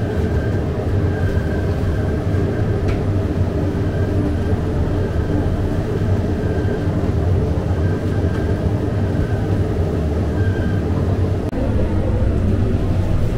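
Steady loud low rumble of bakery machinery running continuously, with a faint short high tone repeating about once a second.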